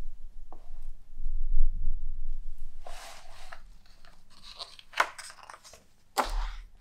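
Pages of a large hardback photo book being turned by hand: paper rustling and swishing, with a sharp flick about five seconds in and another near the end.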